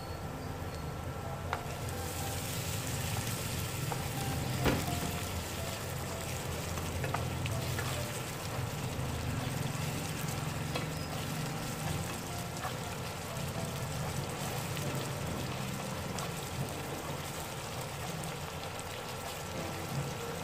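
Minced garlic, shallots and lemongrass frying in a deep pool of hot oil, sizzling steadily, while chopsticks stir them and click now and then against the pan, the sharpest click about five seconds in.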